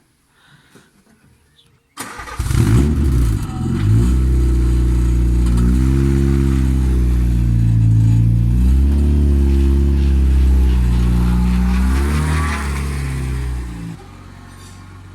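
A car engine that bursts in about two seconds in and runs loud, its revs rising and falling several times, then drops sharply near the end to a much quieter steady engine sound.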